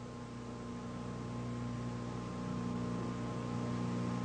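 Steady electrical mains hum with hiss: a stack of low tones and a faint higher whine, growing slightly louder.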